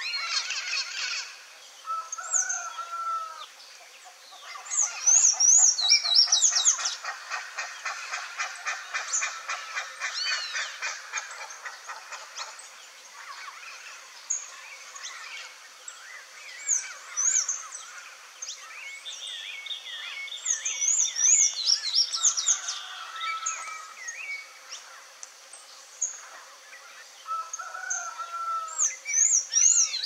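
Several songbirds singing and chirping together: high, thin chirps, a fast run of rapidly repeated notes, and short lower warbled phrases, busiest in the first half.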